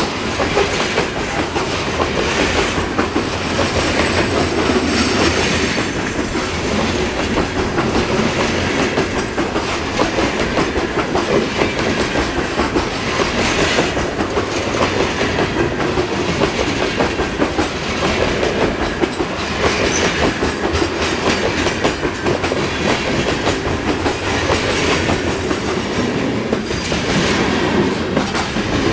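A mixed freight train's cars rolling steadily past, steel wheels clacking over the rail with a continuous rumble and hiss.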